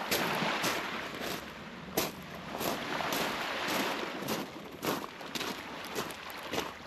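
Footsteps at a steady walking pace, about two steps a second, over a steady rushing background noise.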